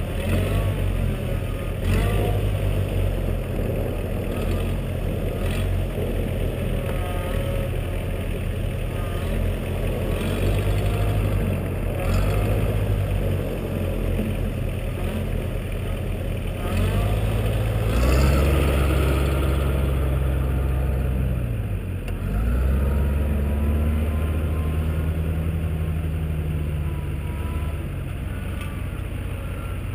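Diesel engines running: a steady low drone from the idling Duramax pickup and the Massey Ferguson 1547 compact tractor. The engine note steps up louder and higher for a few seconds about two-thirds of the way in, and again for several seconds after that, as the tractor works and pulls away. A few short knocks are heard along the way.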